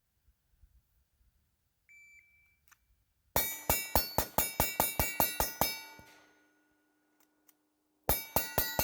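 A short electronic beep, then a Glock 19 9mm pistol fitted with a muzzle compensator fired in rapid succession: about fourteen shots in two and a half seconds, with metallic ringing carrying over the string. After a pause of about two seconds, another rapid string starts near the end.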